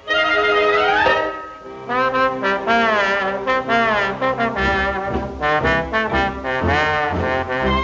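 Orchestral cartoon score led by brass, with a trombone sliding up early on, then wavering, wobbling brass and wind phrases over a steady bass line.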